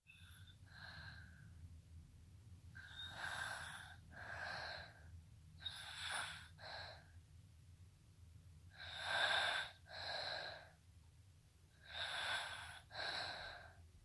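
Snoring in sleep. Each breath comes as a pair of hissing, raspy sounds, in then out, and the pairs repeat about every three seconds. There are five pairs; the first is faint and the fourth, about nine seconds in, is the loudest.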